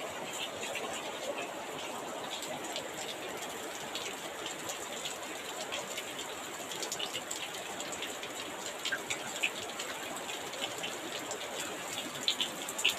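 Heavy rain pouring steadily, with scattered sharper drip ticks that become more frequent in the second half.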